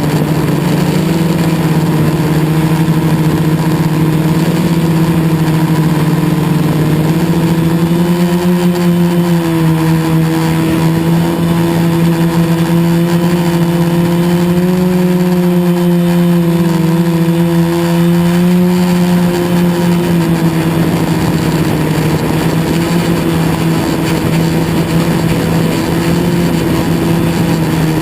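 Quadcopter's KDA 20-22L brushless motors and propellers buzzing steadily in flight, the pitch drifting slightly up and down with throttle.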